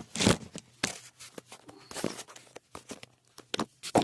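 A series of short, irregular rustles and scrapes of hands working close to the microphone to let down hair, the loudest just after the start.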